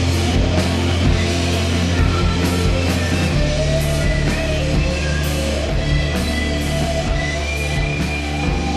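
Heavy rock music: sustained low bass and distorted guitar notes under regular drum and cymbal hits.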